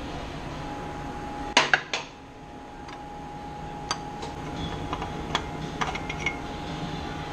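Sharp metallic clicks and clinks of a ratchet extension and the oil filter housing as the housing is loosened and worked off by hand. A loud cluster of two or three clicks comes about one and a half seconds in, then lighter scattered clinks follow, over a steady faint hum.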